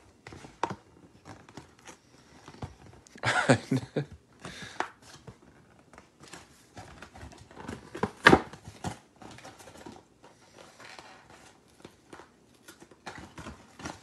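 Paperboard microwave-pizza carton being torn open along its perforations and handled: irregular tearing, rustling and tapping. Louder rips come about three and a half and eight seconds in.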